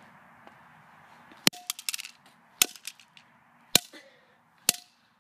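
Baseball bat striking a die-cast Hot Wheels toy car on asphalt: four sharp hits about a second apart, the first followed by a quick rattle of smaller clicks, several with a short ring after the hit.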